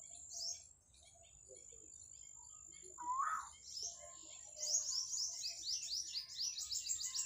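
Wild birds calling: a short rising whistled note about 3 seconds in and again at the end, and a fast run of high, falling chirps through the second half. A steady, thin high-pitched tone runs underneath.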